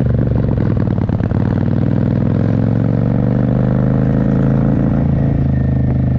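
Motorcycle engine accelerating, its pitch rising steadily for a few seconds and then holding steady.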